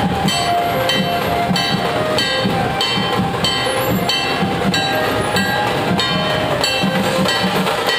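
Dhol-tasha ensemble playing: large barrel dhols beaten in a steady, driving rhythm, about two and a half strokes a second, with metallic clashes on every beat.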